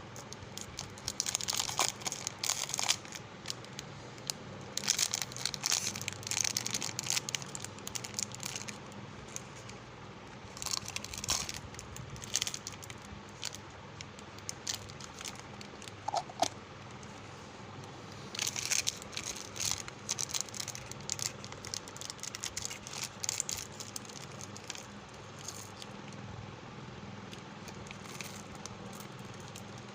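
Plastic candy wrappers crinkling and tearing in bursts of a few seconds with pauses between, over a faint steady hum.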